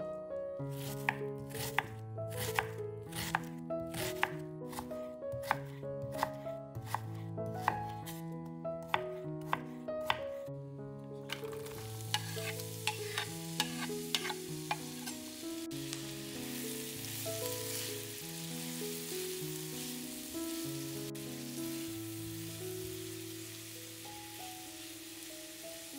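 A knife chopping on a cutting board, about two cuts a second, for the first ten seconds. Then, after a brief pause, food sizzling as it fries in a pan, all over background music.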